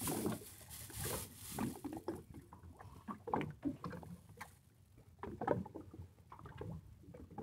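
Water slapping and splashing against the hull of a fishing boat in irregular surges.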